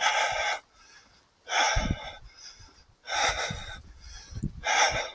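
A man breathing hard, out of breath after running, with a loud breath about every second and a half.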